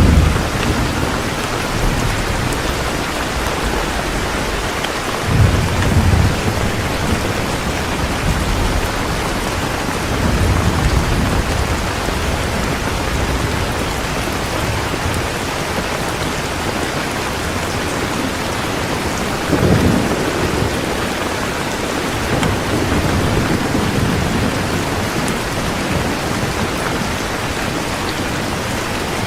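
Steady heavy rain falling, with low rolls of thunder swelling up about five, ten and twenty seconds in.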